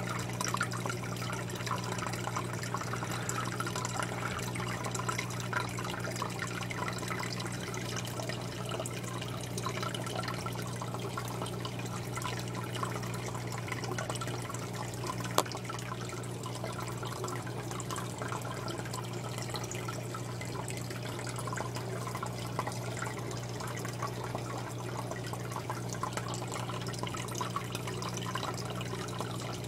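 Aquarium water trickling and bubbling from the tank's filter or aeration, over a steady low hum, with a single sharp click about halfway through.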